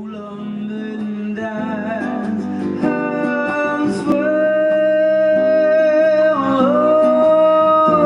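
Hawaiian-style song intro on plucked acoustic guitar, with a long held melody line over it from about halfway through, growing louder.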